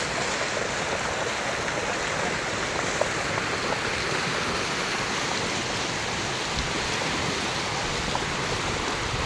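Muddy floodwater rushing and churning down a channel as it pours through a gap in an earthen embankment: a steady rushing of water.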